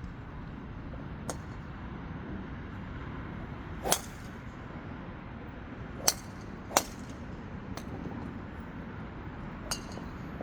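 Sharp cracks of golf clubs striking balls on a driving range: six in all, the loudest about four seconds in and two more close together soon after six seconds, over steady background noise.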